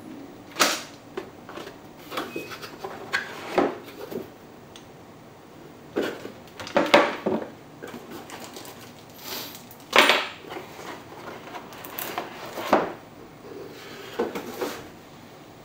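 Irregular knocks, taps and clatters of a wooden-stocked airsoft rifle and its cardboard box and pulp insert being handled as the rifle is unpacked, with the loudest knocks about seven and ten seconds in.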